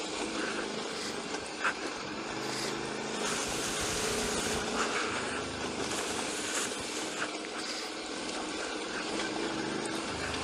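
Enfield motorcycle riding steadily along a gravel dirt track: the engine runs at low speed under the crunch of the knobby front tyre on loose gravel. A single sharp click, likely a stone being struck, comes about two seconds in.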